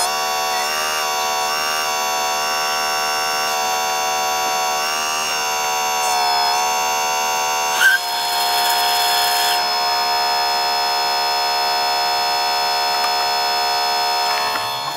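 Whine of the hydraulic pump motor on a Leimbach RC hydraulic excavator, steady in pitch but dipping briefly several times as the pump is loaded. Just before halfway there is a short hiss, as of oil rushing through a valve.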